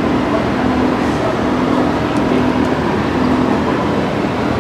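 Oil-fired steam locomotive making a steady, loud rushing noise with a constant low hum, with a few faint ticks.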